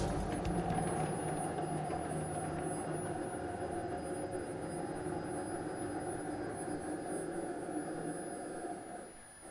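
Superconducting maglev lift running on its linear motors: a steady hum and hiss with a few faint steady tones, slowly getting quieter and dropping away about nine seconds in.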